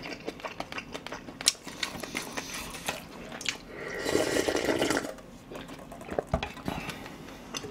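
Close-miked eating: small chewing clicks, then about four seconds in a louder slurp lasting about a second as ramen broth is drunk straight from an aluminium pot, followed by more clicks of chewing and spoon.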